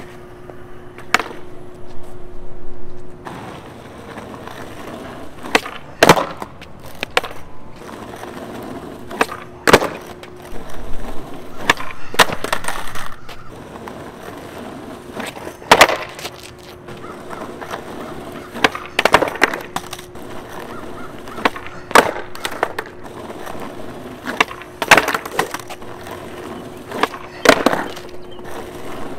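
Skateboard on asphalt during repeated nollie varial kickflip attempts: sharp pops of the board and slaps of the deck and wheels hitting the ground, about every two seconds, many of them missed landings.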